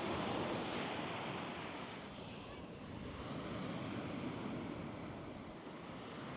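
Small Lake Michigan waves washing onto the beach, a steady rushing wash that swells and eases, with wind buffeting the microphone.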